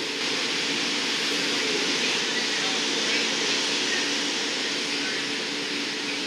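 Steady roar of gas-fired glory holes and furnaces in a glassblowing studio, with a low even hum underneath.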